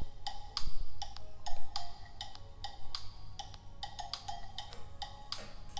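Background music with a light, clicking percussive beat and short pitched notes at an even pace.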